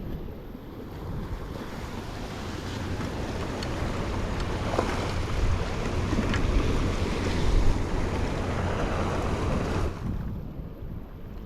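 Sea waves washing in against shore rocks, one surge swelling over several seconds and dying away near the end, with wind buffeting the microphone.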